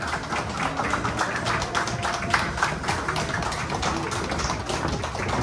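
A small audience clapping steadily: many quick, sharp hand claps, with the waltz music faint underneath.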